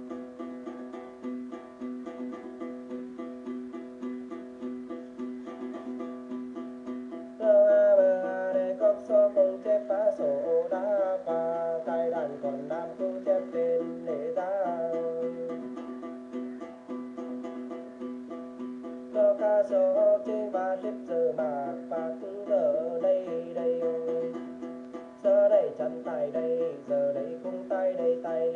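Đàn tính gourd lute plucked in a fast, steady rhythm over a held low string. About seven seconds in a man's voice joins with a Then ritual chant, sung in three phrases with short instrumental gaps between them.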